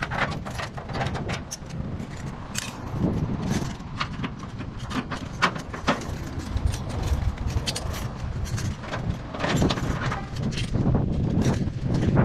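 A bunch of keys jangling and clicking in the padlocks of a metal roller shutter as they are unlocked, with many short metal clinks and rattles over a low steady rumble.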